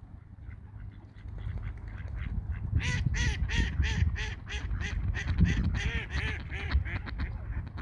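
Ducks quacking: faint calls at first, then from about three seconds in a rapid, loud run of quacks, four or five a second, that fades near the end.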